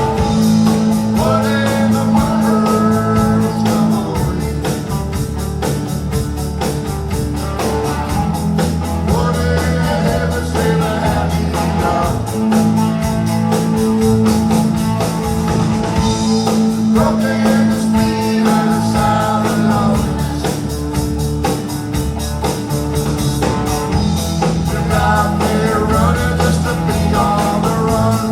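Live band playing a country-folk song: guitars over a bass line and drum kit, with a wavering melody line on top, possibly sung.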